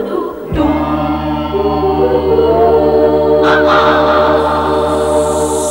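Theme-song music with a chorus of voices singing long held notes over a steady low bass note. The chord shifts a few times, and it fades away at the very end.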